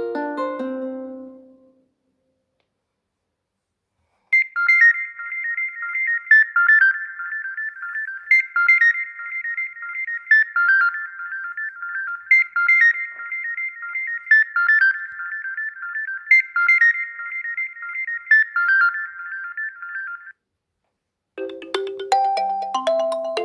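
Xiaomi Redmi 7A ringtones playing one after another. The end of one tune fades out, and after a short pause a high, fast, repeating melody plays for about sixteen seconds, its phrase coming round about every four seconds. Near the end a lower tune starts.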